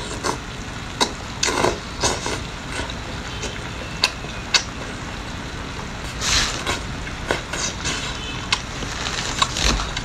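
Close-miked wet chewing and lip-smacking of chili-oil-coated seafood, with many short sharp smacks and a longer wet noise about six seconds in.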